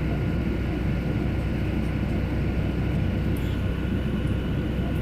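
Steady drone of an airliner's engines and rushing air heard inside the passenger cabin during a descent, deep and even, with a few faint steady whining tones above it.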